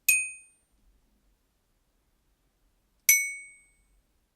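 Two single glockenspiel notes, each struck once and ringing out briefly, about three seconds apart, the second a little lower in pitch. They are being recorded one note at a time as samples.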